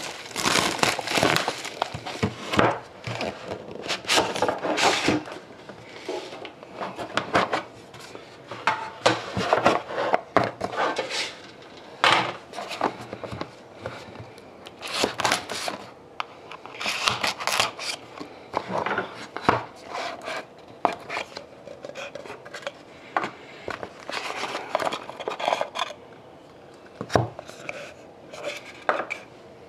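Plastic shrink wrap crinkling as it is pulled off a trading card box, then the cardboard box being handled and opened: many short rustles, scrapes and knocks.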